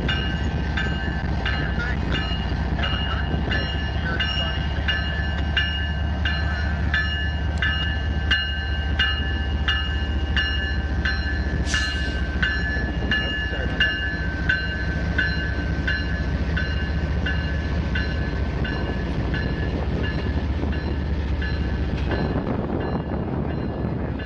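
Norfolk Southern diesel freight locomotive passing close, its engine rumbling deeply, over steady high ringing tones and regular clicks about twice a second. Near the end the engine rumble drops away as the tank cars behind it roll by.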